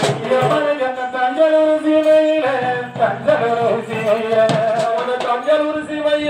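A man singing a Tamil oppari lament in long held, wavering notes, with drum strokes from a side drum and a bass drum underneath.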